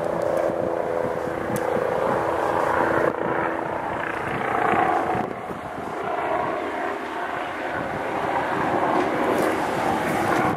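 BK 117 rescue helicopter on its landing approach: a steady rotor rumble that carries a humming tone for the first few seconds, then goes on as a rushing noise.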